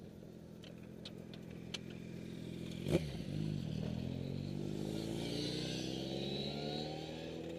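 Distant motorcycle engine accelerating on the track, its pitch climbing steadily from about three seconds in. It follows a few light clicks and a single sharp knock close by.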